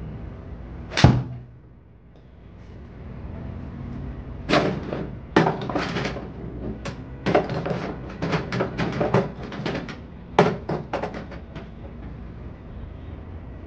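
A golf iron strikes a ball off a simulator hitting mat with one sharp crack about a second in. From about four and a half seconds in comes a run of irregular light clicks and knocks, over a low steady hum.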